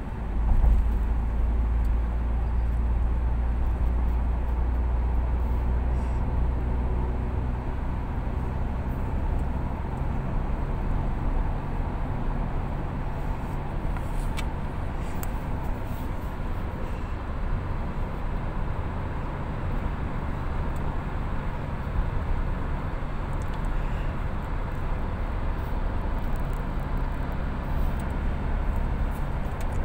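Steady low rumble of a car on the move, heard from inside the cabin: engine hum and tyre and road noise. The deep rumble is heaviest in the first several seconds, then settles lower.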